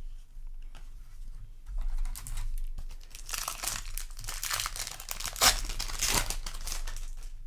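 Foil booster pack wrapper crinkling and tearing as it is handled and ripped open, with the loudest crackles in the second half.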